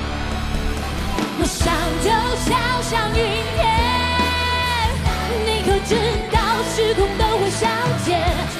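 A female lead singer belting a Chinese-style (guofeng) rock song over a band with drums and electric guitars. Her voice comes in about a second in and holds one long note around the middle.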